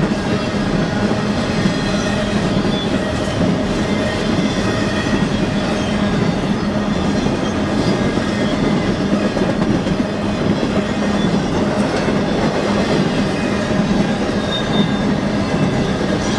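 BNSF freight train rolling past at close range: a loud, steady rumble and clatter of steel wheels on the rails, with a low steady tone underneath.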